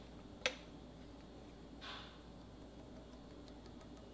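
A sharp click about half a second in, then a soft, sticky press and a few faint light ticks as a blue Crayola washable marker's tip dabs dots into soft white slime.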